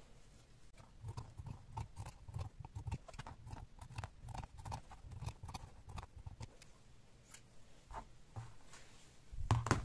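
Fabric scissors snipping through layered fabric, a run of short cuts about three a second that thins out and stops, with a louder knock near the end.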